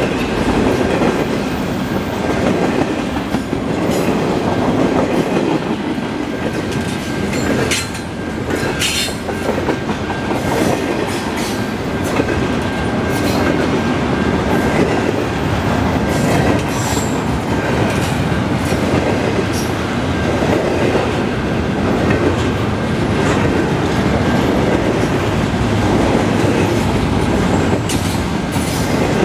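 Double-stack intermodal well cars rolling past: a steady rumble of steel wheels on rail, with a thin high whine and a few sharp clacks over rail joints.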